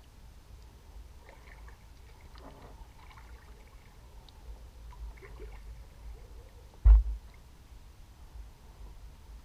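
Kayak paddling on calm water: faint dripping and trickling from the paddle strokes, with a low rumble on the hull-mounted microphone. About seven seconds in there is a single sharp, loud thump, typical of the paddle knocking against the kayak's hull.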